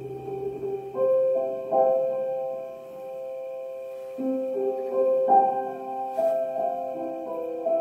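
Background music of slow, held keyboard chords with no singing; new chords are struck about a second in and again around four and five seconds in.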